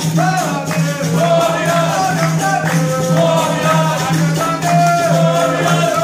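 Capoeira roda music: berimbaus with their caxixi shakers and an atabaque drum keep a steady rhythm while people clap and a group sings call-and-response songs.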